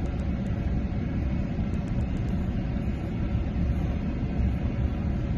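Steady low rumble with no speech, in the manner of vehicle or road noise.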